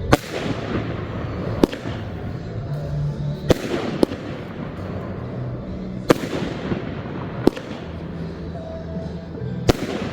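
Fireworks shells bursting in a series of sharp bangs, about seven in ten seconds, each trailing off in a fading crackle. Background music plays underneath.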